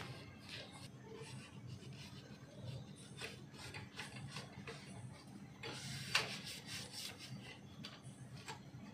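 Cotton rag rubbing and wiping over a Honda Amaze's drum brake backing plate: irregular scrubbing strokes, with one sharper clack about six seconds in.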